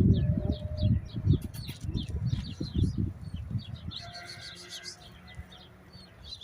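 Small birds chirping over and over, with irregular low rumbling thumps underneath that die away about two-thirds of the way through.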